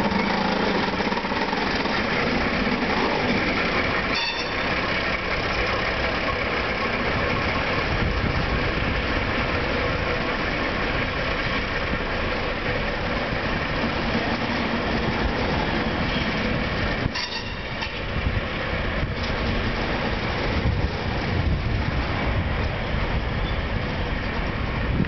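ICE train wheels squealing and creaking as the train rolls slowly over the tracks onto a train ferry. A few sharp knocks come from the wheels and rails, about four seconds in and again around seventeen seconds.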